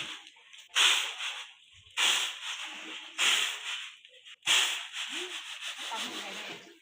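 Repeated rough scraping or rubbing strokes, four of them a little over a second apart, each starting sharply and then fading.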